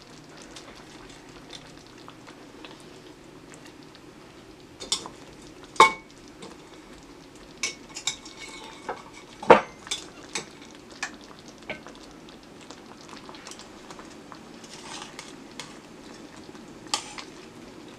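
Creamy mushroom sauce simmering steadily in a metal pan as pork chops are set into it with metal tongs, which clink against the pan a few times, loudest about six and nine seconds in.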